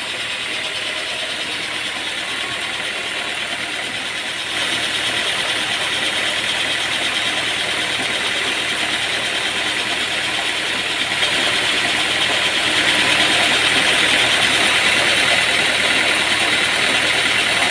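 Sawmill machinery running steadily, growing louder in two steps, about four seconds in and again about eleven seconds in.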